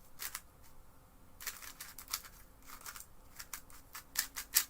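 X-Man Tornado V2 3x3 speedcube with core-corner magnets being turned by hand: quick plastic clicks and clacks of layers snapping into place, in irregular runs, loudest near the end.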